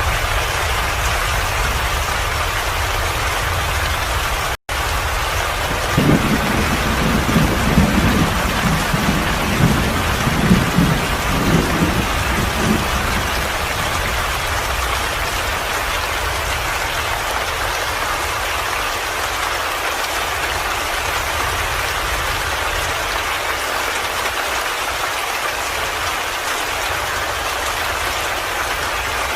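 Steady rain hissing, with thunder rumbling low underneath in the first half, rolling loudest between about six and thirteen seconds in. A split-second gap of silence cuts in about four and a half seconds in.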